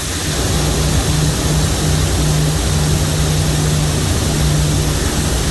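A vehicle engine running steadily, a low even hum, under a loud constant hiss.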